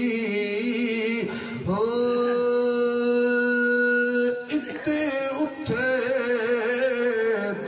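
A man chanting Sufi kalam (devotional verse) in a melodic recitation. He holds one long steady note from about two seconds in to about four seconds, then moves on through wavering melodic phrases.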